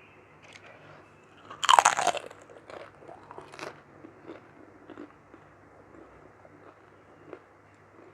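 Close-miked eating of mutton curry with rice: one loud bite about two seconds in, followed by quieter chewing with scattered mouth clicks.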